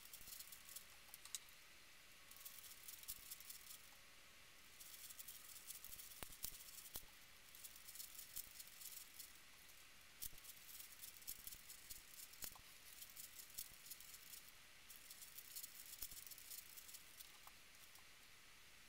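Plastic 5x5 puzzle cube being turned by hand: faint, quick clicking and rattling of its layers in runs of a few seconds, broken by short pauses.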